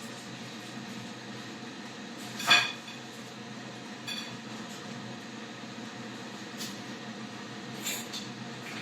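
Small metal tools clinking and tapping against the circuit board during soldering: one sharp clink about two and a half seconds in and a few lighter ticks later, over a steady low hum.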